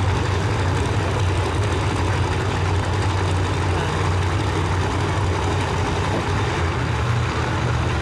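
Supercharged no-prep drag car's engine idling at the starting line through open headers, a steady, loud, deep running sound.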